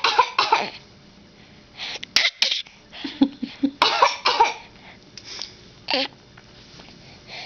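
A person's deliberate fake coughing: a string of short, separate coughs, about half a dozen spread over several seconds with short pauses between.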